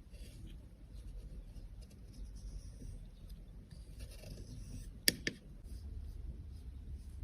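Soft scratching and rubbing of a tool working on a cosmetic, with a sharp click about five seconds in and a smaller one just after.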